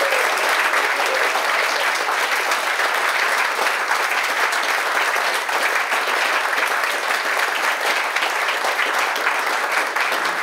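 Audience applauding steadily, a dense run of many hands clapping at once.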